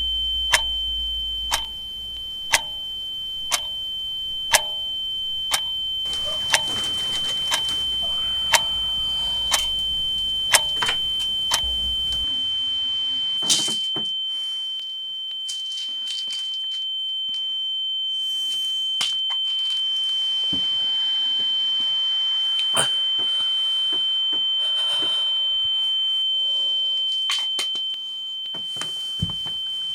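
A steady high-pitched tone rings throughout. For about the first twelve seconds a sharp tick sounds about once a second over a low hum. The hum cuts off about twelve seconds in, and scattered clicks follow.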